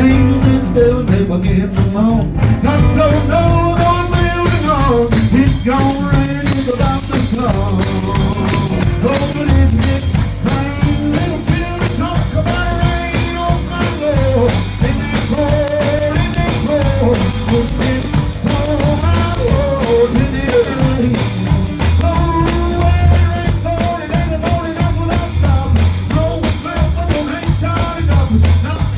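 Live gospel music: voices singing over a band with a steady bass line and busy, continuous percussion.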